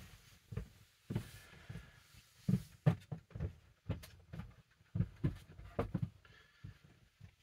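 Irregular soft low thumps, a few a second, with brief rustles: footsteps and the handling of a snapback cap and its packaging in a small room. The thumps stop just before the end.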